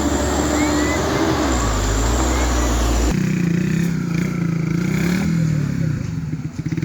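Vehicle engines running in two back-to-back clips: a deep, steady rumble, then a sudden cut about three seconds in to an engine whose pitch wavers up and down.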